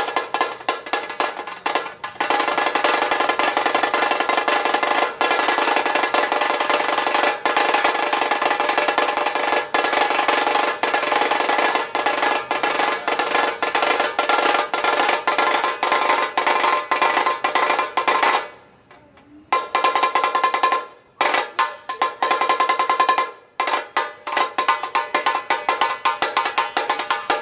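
Fast drum roll on a small double-headed drum beaten with two thin sticks, a dense run of rapid strokes with a ringing tone. It stops for about a second about two-thirds of the way through, then comes back in short runs with brief gaps.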